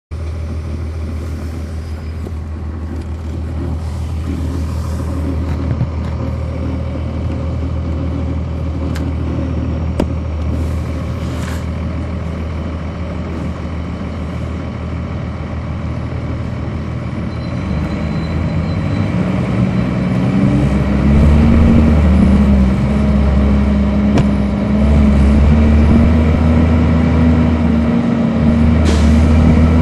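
Cummins ISC straight-six diesel of a 1999 Nova Bus RTS, heard on board the bus. It runs steadily at low revs, then about eighteen seconds in it revs up and gets louder, its note rising as the bus accelerates.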